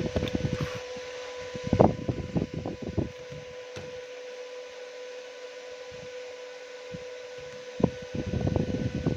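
Electric fan running with a steady hum and hiss, with low rumbling gusts of air on the microphone in the first three seconds and again near the end. There are two sharper knocks, about two seconds in and about eight seconds in.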